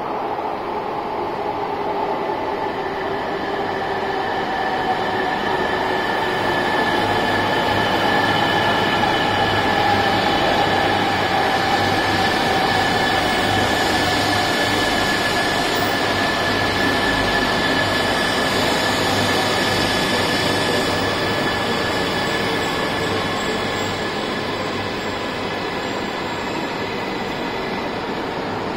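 E2-series Shinkansen train running through an underground station platform without stopping: a loud rushing rumble with a steady whine, with tones sliding down in pitch as it comes in. The noise builds to its loudest about ten seconds in as the cars pass and eases off near the end.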